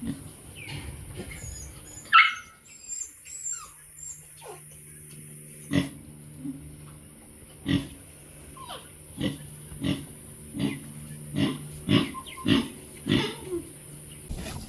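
A series of short, rough animal grunts or growls, about one a second, after a sharp higher yelp about two seconds in.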